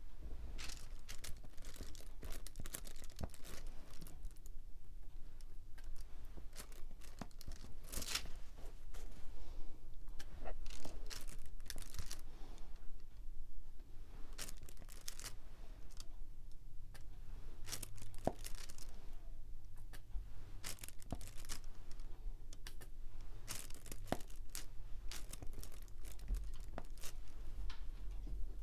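Irregular crinkling and small clicks of diamond-painting work: plastic being handled and resin drills pressed onto the adhesive canvas.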